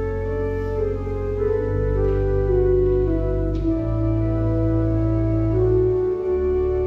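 Church organ playing slow, sustained chords over deep held bass notes, the harmony shifting every second or two.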